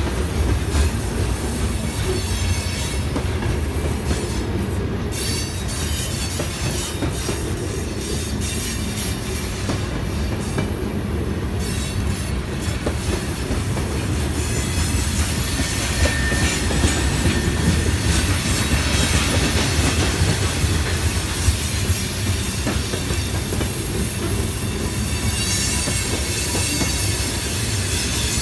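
Loaded woodchip hopper cars of a Norfolk Southern freight train rolling past on curving track as the train climbs a grade: a steady low rumble of steel wheels on rail, with scattered clicks and a couple of brief thin squeals from the wheels, one about twelve seconds in and another about sixteen seconds in.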